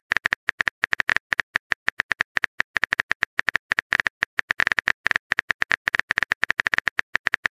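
Phone keyboard typing sound effect: rapid, uneven taps as a text message is typed out.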